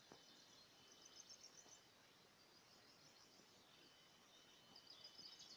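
Near silence: faint outdoor ambience with soft, high chirping in two short spells, about a second in and again near the end.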